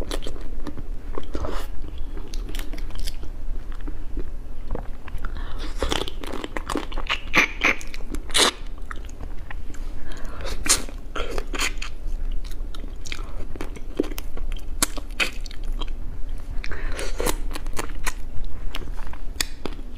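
Close-miked mouth sounds of a person eating saucy food with her fingers: wet chewing, biting and sucking, with many irregular sharp clicks and smacks. The sounds are busiest about a third of the way in and again near the end.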